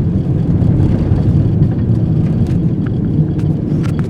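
Car driving at speed, heard from inside the cabin with the windows up: a steady low rumble of engine and road noise.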